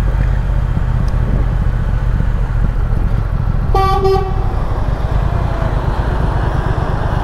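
Triumph Speed Twin's parallel-twin engine running steadily under way, and a vehicle horn beeps once, briefly, about four seconds in.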